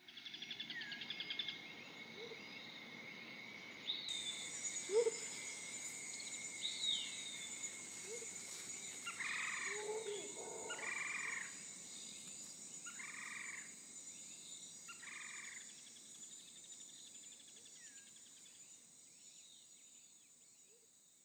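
Outdoor ambience of animal calls: a continuous trill and a steady high tone, scattered short chirps, and four louder calls in the middle. It fades out toward the end.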